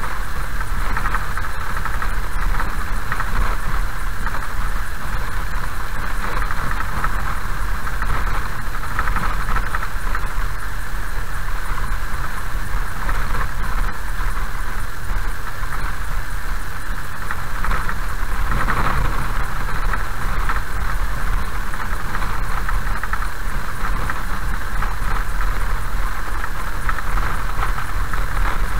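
A car driving slowly along a gravel road, heard from inside the cabin: a steady low rumble of engine and tyres on gravel.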